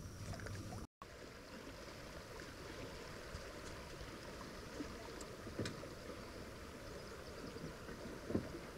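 Faint, steady wash of river water lapping around a drifting canoe, with a couple of light knocks about halfway through and near the end.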